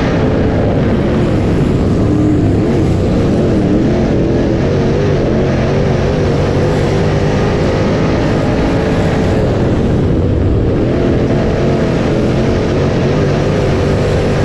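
V8 engines of dirt late model race cars at speed on a dirt oval, their pitch rising and falling over and over as they lift for the turns and get back on the throttle.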